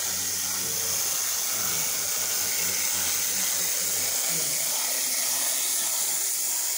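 Steady high-pitched hiss with a faint low hum and murmur beneath it; no distinct sound from the tiny model train stands out.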